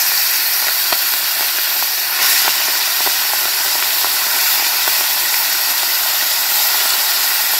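Pieces of country chicken, just dropped into hot oil in a karahi, sizzling steadily, with a small pop now and then.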